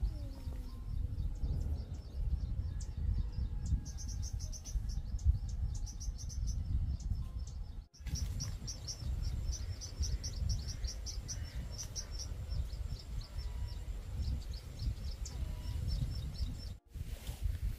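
High, rapid chirping in repeated runs of several notes a second from a small bird or insect, over a steady low rumble.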